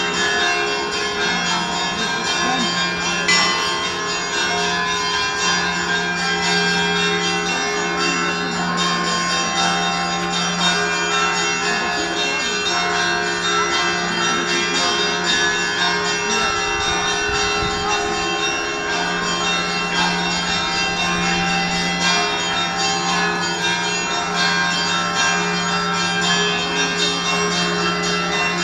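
Zaikonospassky Monastery's Russian Orthodox church bells rung together, many bells struck in quick succession with their tones overlapping. A low bell hums steadily underneath, fading out briefly about two-thirds of the way through.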